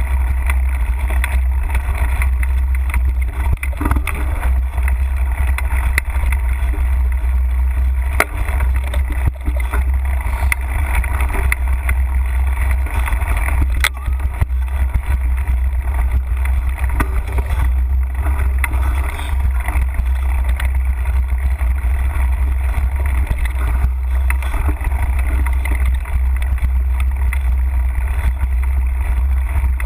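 Mountain bike riding over a dirt trail, heard as a steady low wind and vibration rumble on an action camera's microphone, with a few sharp clicks and rattles from the bike going over bumps.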